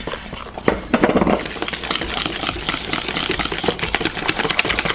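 Wire whisk beating buttermilk into flour and cornstarch to make a thick batter, a fast, continuous run of clicks and scrapes as the wires knock against the bowl.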